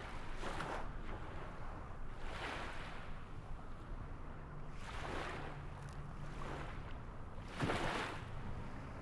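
Waves washing in, one swell every two to three seconds over a steady low rumble, the loudest one near the end.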